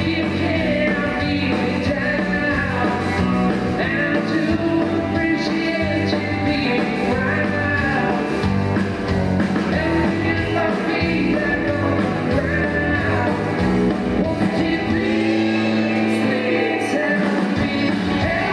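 Live rock band playing with a lead vocal, the full band sound steady and loud throughout.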